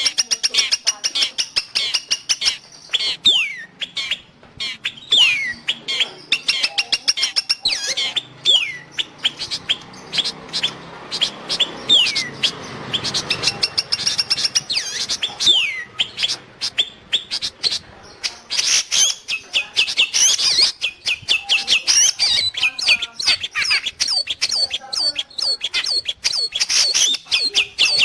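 Long-tailed shrike (cendet) singing: a fast run of sharp chattering ticks mixed with high whistled notes that slide downward, repeated again and again.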